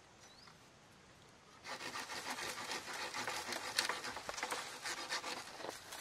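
Dense, irregular rustling and scraping of leaves, grass and sticks being handled and worked, starting about two seconds in after a quiet stretch.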